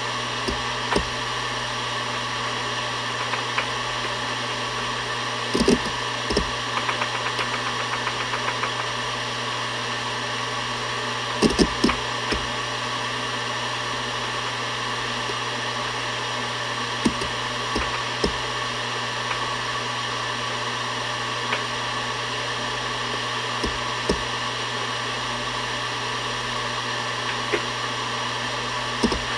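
Seagate Barracuda ES.2 ST31000340NS 7200 rpm enterprise hard drive spinning with a steady whir and hum, its heads seeking in short clicks every few seconds. Around a quarter of the way in, a quick run of light seek ticks lasts about two seconds.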